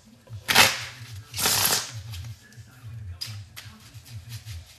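A deck of cards being riffle-shuffled by hand: two loud riffles within the first two seconds, followed by a run of softer ticks and clicks as the cards are squared and shuffled again.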